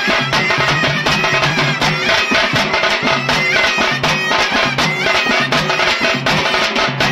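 Traditional folk music: a reedy wind instrument playing over fast, steady drumming.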